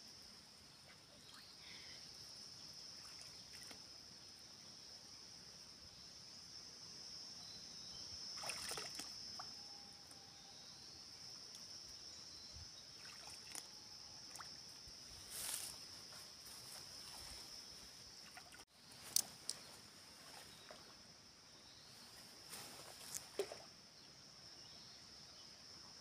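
Hands and rubber boots sloshing in the shallow muddy water of a flooded paddy field, with a few short splashes. A steady high chirring of insects runs underneath.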